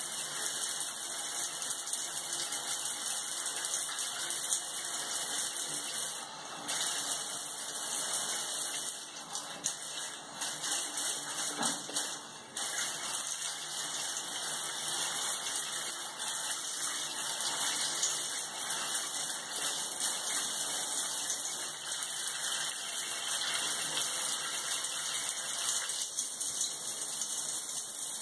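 Shower spray running onto a wet tiled shower floor, a steady hiss of water with a few short dips in the first half.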